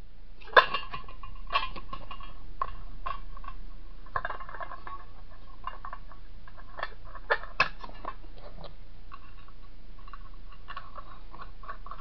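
A perforated metal coffee tin and a red plastic piston disc being handled and fitted together by hand: scattered sharp clicks and knocks with scraping and rattling between them. The sharpest knock comes about half a second in, and two more come close together past the middle.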